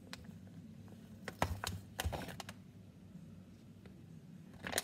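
A few light, scattered taps and clicks of chicken breast slices being laid by hand onto a tortilla wrap on a paper plate, over a faint steady low hum.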